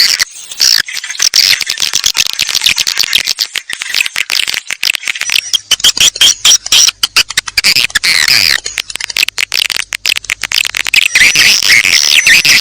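Swiftlet lure call recording: dense, rapid high-pitched twittering chirps and clicks of swiftlets, the kind of call track played to draw swiftlets into a new swiftlet house. A thin high whistle joins near the end.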